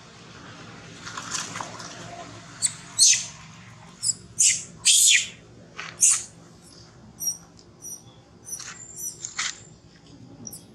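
Baby macaque giving a series of short, high-pitched squeals, about a dozen spread over several seconds, each dropping in pitch, the loudest ones in the middle.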